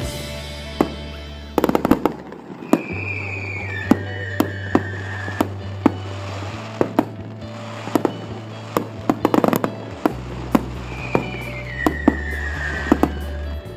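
Fireworks display: repeated sharp bangs of bursting shells, with two bouts of rapid crackling, over music with sustained bass notes.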